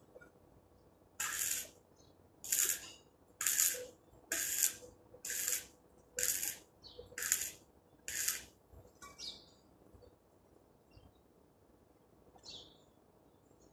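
Stick welding in short strikes on a steel-tube frame: about eight bursts of arc hiss, each about half a second, roughly one a second, stopping about nine seconds in.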